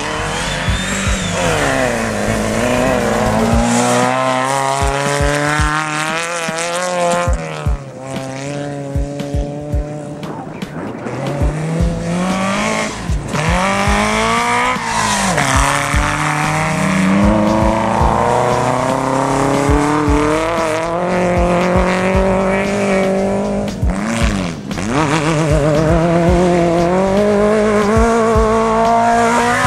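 Off-road race buggies and trucks with their engines revving hard on a dirt track, pitch climbing through each gear and dropping at the shifts. Several vehicles pass close one after another, each pass marked by a quick swing down in pitch.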